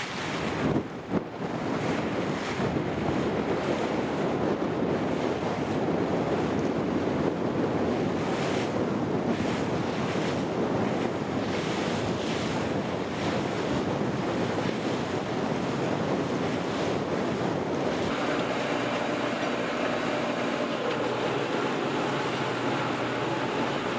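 Wind buffeting the microphone over harbour water, in gusts, with a boat's engine running beneath. About eighteen seconds in the sound changes to a steadier, lower hum.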